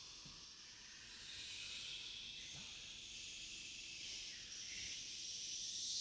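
A vocal ensemble making soft, unpitched hissing breath sounds. The sound swells gradually and is fullest near the end.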